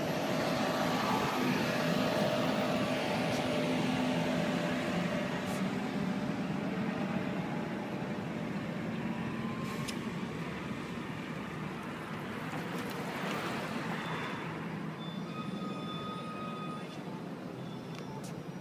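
City bus engine running as the bus pulls away from the stop, its hum fading over the first several seconds and leaving steady street traffic noise. A couple of faint high tones come near the end.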